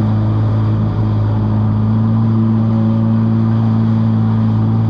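Jet ski engine running at a steady pitch as the craft cruises, with a constant rush of wind and water.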